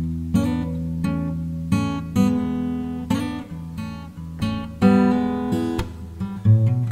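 Background music: acoustic guitar strumming and picking chords.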